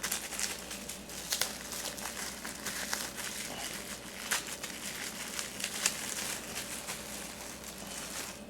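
Bubble wrap being unwrapped by hand from a plastic miniature figure: an uneven run of crinkling and crackling that stops near the end.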